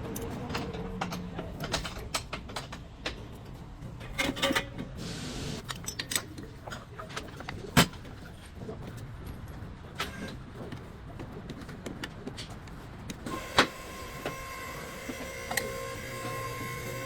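Scattered clicks and metallic knocks of hand work on metal parts, with a short hiss about five seconds in; from about thirteen seconds in a steady motor whine joins them.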